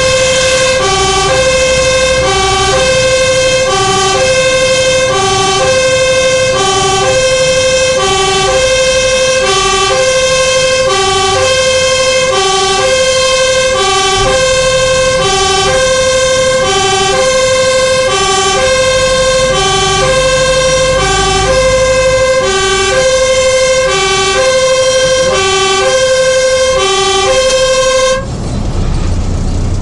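A fire engine's two-tone siren, heard from inside the cab, sounding its emergency warning. It alternates steadily between a higher and a lower tone about once a second, then cuts off suddenly near the end, leaving the rumble of the engine and tyres.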